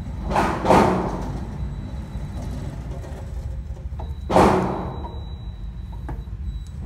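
Three gunshots echoing in an indoor range, two in quick succession about half a second in and a single one about four seconds later.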